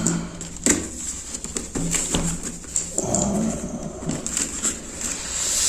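Cardboard shipping box being handled and opened by hand: scrapes, taps and rustles of cardboard and packing tape, with a rising rasp near the end. A brief pitched sound about three seconds in.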